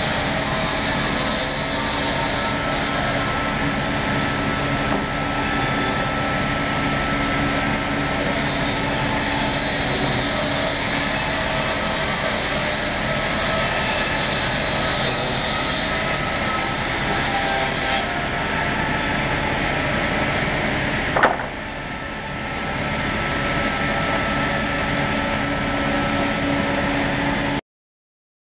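Industrial woodworking saw running steadily and cutting timber. A sharp click about 21 seconds in, after which it quietens briefly and builds back up, then the sound cuts off abruptly near the end.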